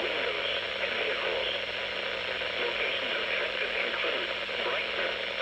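Radio static: a steady crackling hiss over a low hum, as from a radio receiver on a weak or noisy signal.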